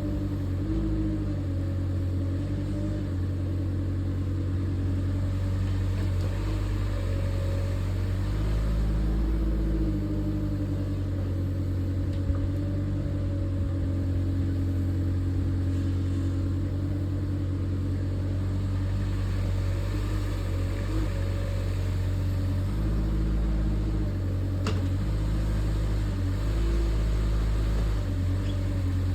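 2-tonne LiuGong mini excavator's diesel engine running steadily, its pitch dipping and recovering from time to time as the hydraulics take load while it digs, with a single sharp click near the end.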